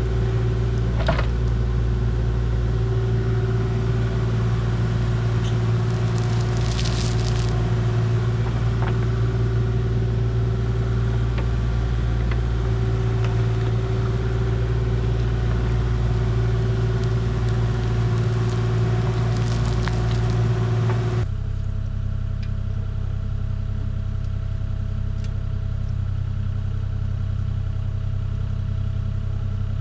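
A motor vehicle engine running steadily. About 21 seconds in, the sound abruptly drops a little and shifts to a different steady pitch.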